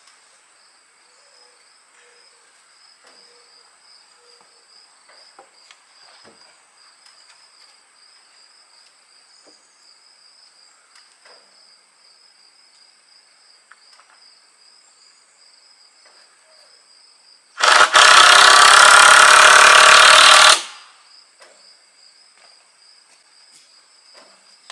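Crickets chirping steadily, with scattered light knocks of work on wood. About two-thirds of the way in, a loud power tool runs for about three seconds and stops.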